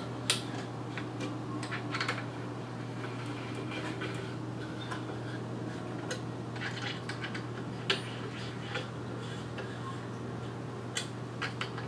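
Scattered light metallic clicks and clinks of a hex key working the propeller bolts on a paramotor's prop hub, over a steady low hum.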